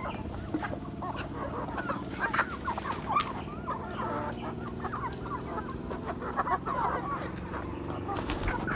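A flock of hens clucking as they feed, many short calls overlapping all through.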